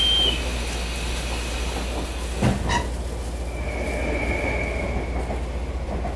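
Steady low hum inside a standing Taiwan Railway EMU700 electric commuter train. A high, steady door buzzer cuts off just as the sound begins, and a sharp knock comes about two and a half seconds in, with a lighter one just after.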